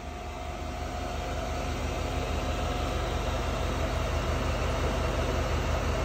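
Dutch Aire 12-volt dual-compressor RV fridge running: a steady electric hum and whir from its compressors and the twin-fan fin fan on the cooling fins, growing louder over the first few seconds.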